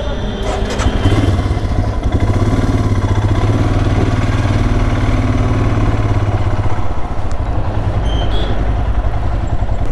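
Motorcycle engine running as the bike sets off, getting louder about a second in and holding steady until it eases around seven seconds.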